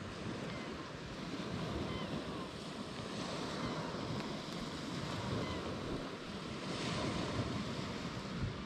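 Steady wind rushing over the microphone, with surf washing along the beach underneath.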